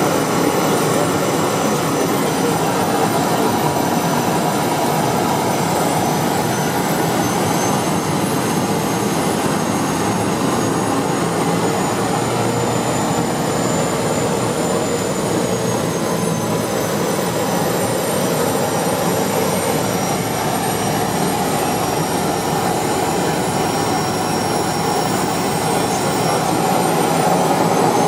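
Atlas Angel's single turboprop engine and propeller running while taxiing, heard from inside the cockpit: a steady drone with a high turbine whine. The whine drops in pitch about halfway through and rises again near the end.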